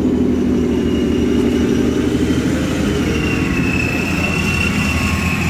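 Shelby Mustang GT350's V8 idling steadily, with a thin high whine over it that makes it sound boosted.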